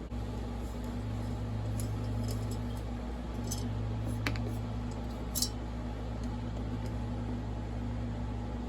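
Steady low hum with a few light clicks and taps of metal chainsaw parts being handled during a teardown.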